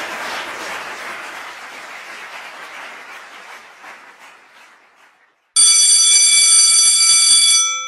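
A rush of noise fades away over about five seconds. Then a school bell tone starts abruptly, sounds loud and steady for about two seconds, and rings out, signalling the start of class.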